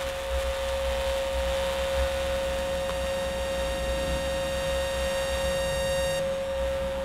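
A steady, hum-like drone from an experimental sound piece: one strong held tone with a fainter set of high, thin tones above it, over a low rumble that wavers. The high tones cut off suddenly about six seconds in, leaving the main tone and the rumble.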